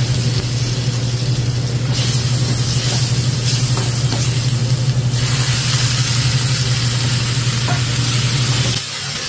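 Garlic and chili paste sizzling in a wok over a gas burner while a ladle stirs, the sizzle growing louder about two seconds in and again about five seconds in. Underneath runs a steady low hum that cuts off near the end.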